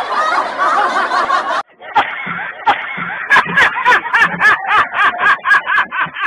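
Laughter. A dense stretch of laughing cuts off under two seconds in, then a man laughs hard in short, quick bursts, about three a second.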